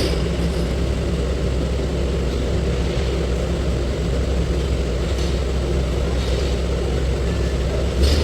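Motor vehicle engine running with a steady low drone, with a few faint rattles or knocks.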